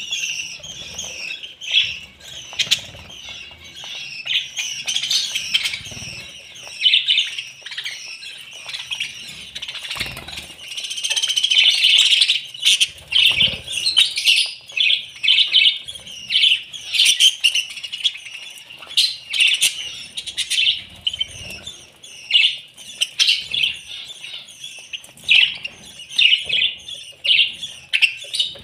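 A flock of budgerigars chattering continuously in many overlapping short chirps and warbles, with occasional wing flutters.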